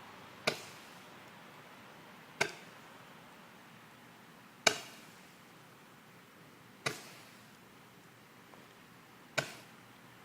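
Roman candle firing its shots one at a time: five sharp pops about two seconds apart, each with a short decaying tail.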